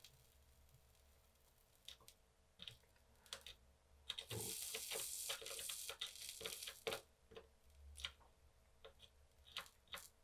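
Soldering iron tip sizzling on fluxed solder joints of a circuit board, a hiss about four seconds in that lasts about three seconds, among faint scattered ticks. The Ethernet port's pins are being reflowed with added leaded solder to cure a suspected cracked joint.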